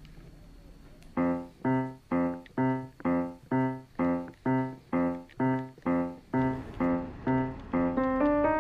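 Background music on a keyboard: after about a second of quiet, one chord is struck over and over, about twice a second, and near the end a melody takes over.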